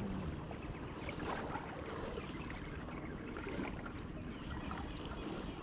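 Steady wash of water and wind noise on the microphone, with no distinct event standing out.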